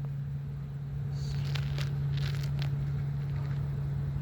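A steady low machine hum, with scattered light crackles and rustles over it.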